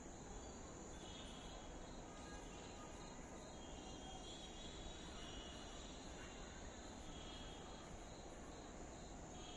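Crickets and other night insects chirping faintly: a steady high trill with short chirps repeating about two or three times a second.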